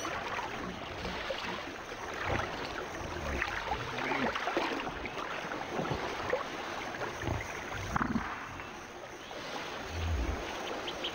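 Water sloshing and splashing in irregular bursts as a Nile crocodile wades and settles into shallow river water to cool off.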